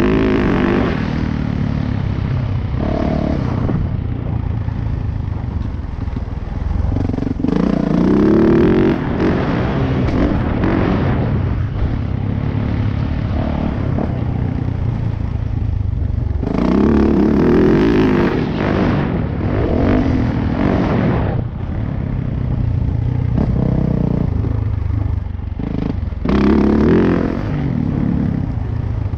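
2018 Yamaha YZ450F's four-stroke single-cylinder engine being ridden hard, the throttle opening in loud surges about every eight to nine seconds and backing off in between.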